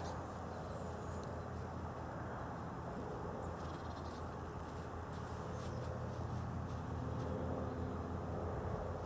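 Steady low background hum, growing a little louder in the second half, with a few faint high ticks.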